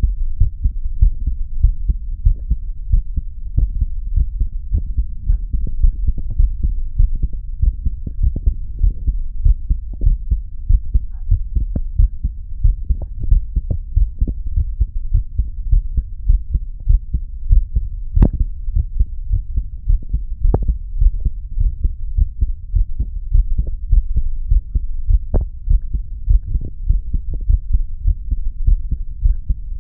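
A man's heartbeat at rest: a steady, relaxed rhythm of low thuds, with a few sharper clicks here and there.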